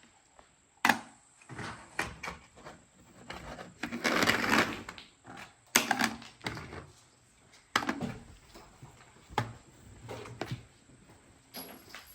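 Scattered sharp knocks and clicks at uneven intervals, the loudest about a second in and near the six-second mark, with a scraping rustle about four seconds in: the clatter of handling gear and equipment.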